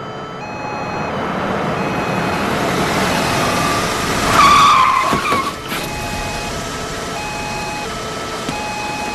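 A taxi cab drives in and brakes to a stop, with a short tyre squeal about four and a half seconds in, over steady engine and road noise.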